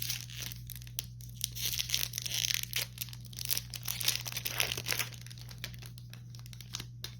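Rustling and crinkling as Magic: The Gathering cards and a foil booster-pack wrapper are handled, with irregular papery clicks heaviest in the middle, over a steady low electrical hum.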